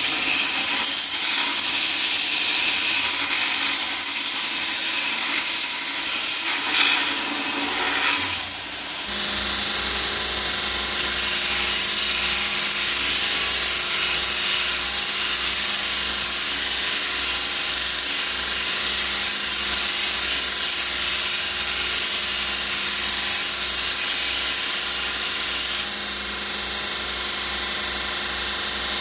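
Grizzly 2x42 belt grinder running a coarse 36-grit belt while high-carbon steel is pressed against it, a steady grinding hiss of abrasive on steel. The sound drops briefly about eight seconds in, then carries on with a steady hum from the grinder underneath.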